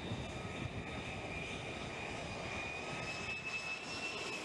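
Jet aircraft engine running: a steady rushing roar with a high whine that rises slightly in pitch over the last couple of seconds.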